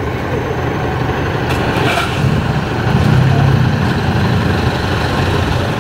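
A truck's engine idling: a low, steady rumble that swells briefly about three seconds in.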